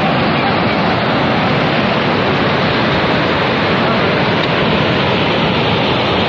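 Muddy flash floodwater rushing past in a loud, steady torrent.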